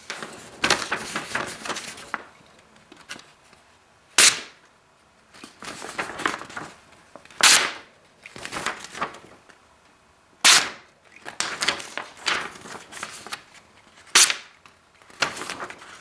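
A sheet of paper being sliced with a Buck Vantage Force Pro folding knife's S30V blade as a sharpness test. There are rustling stretches of paper handling and cutting, and about five sharp, crisp snaps.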